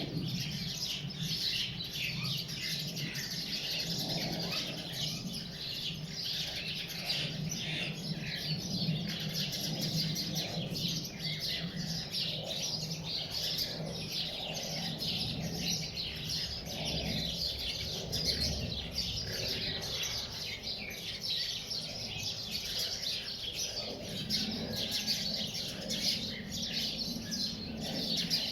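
A dense chorus of small birds chirping without pause, over a faint low, steady hum.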